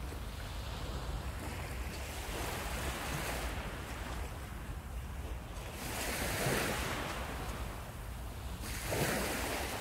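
Sea surf breaking on the shore, swelling in three surges of wash, over a steady low rumble of wind on the microphone.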